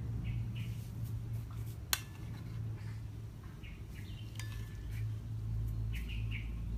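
Kitchen utensils clinking against a pot or dish, with one sharp click about two seconds in, over a steady low hum and a few short high chirps.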